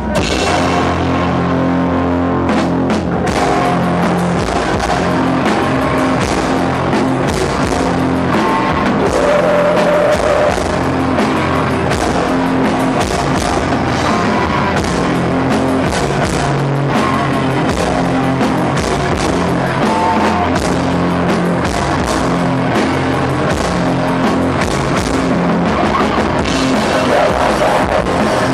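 A heavy metal band playing live and loud: electric guitars, bass and a drum kit, with steady drum hits throughout, picked up by a VHS-C camcorder.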